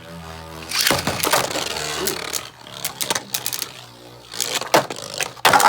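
Two Beybladeslaunched into a plastic stadium, spinning and clashing, with scattered clicks and knocks as the tops hit. A loud dense rattle comes near the end. The hits on Ares sound light, its rubber absorbing the impacts.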